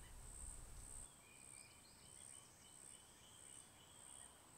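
Near silence: faint outdoor ambience, a steady high insect drone with a few faint bird chirps.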